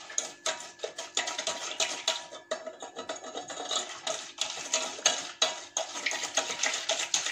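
Cake batter being stirred quickly in a stainless steel pot, the utensil clicking and scraping against the metal in rapid, irregular strokes.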